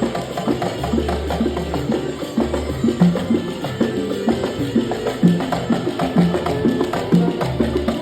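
Music driven by a quick, steady rhythm of hand percussion over a low bass line and pitched instrument notes.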